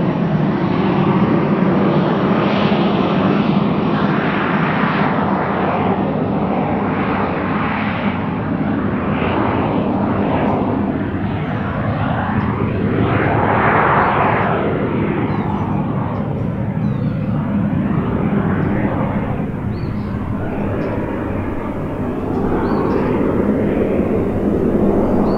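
Cirrus SF50 Vision Jet's single Williams FJ33 turbofan at takeoff power as the jet rolls down the runway, lifts off and climbs away. A steady, loud jet rush with a low hum underneath, its tone sweeping up and down in a slow swishing pattern as the aircraft moves.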